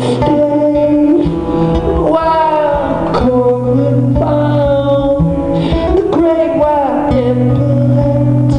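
Live band music: a male voice singing, sliding between notes, over guitar and long held low notes that change every couple of seconds.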